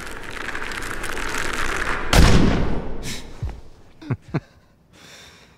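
A rush of noise swells for about two seconds and ends in one loud, deep gunshot boom that rings out. Two short thuds follow about two seconds later.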